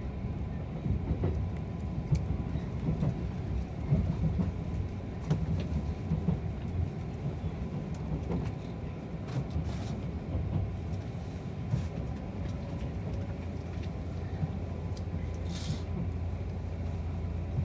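Limited express electric train heard from inside the carriage: a steady low rumble of running on the rails, with scattered sharp clicks at uneven intervals.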